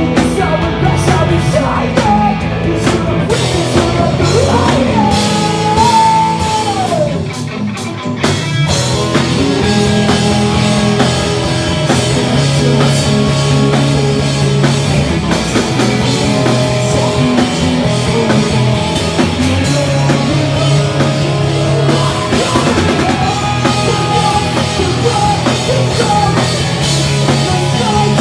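A pop-punk band playing live: electric guitars, a drum kit and a singer. The music drops briefly about a quarter of the way in, then comes back in full.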